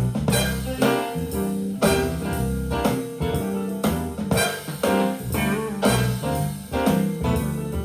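Jazz with trumpets, piano, drums and cymbals playing through a Harman Kardon SoundSticks 4 speaker system, with sharp attacks and ringing cymbal decays.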